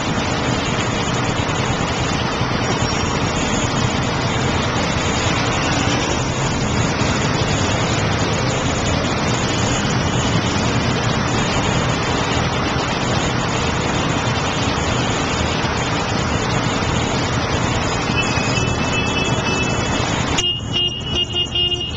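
Dense, steady roar of city street traffic. Near the end the roar drops off suddenly, and pitched honking horn tones sound.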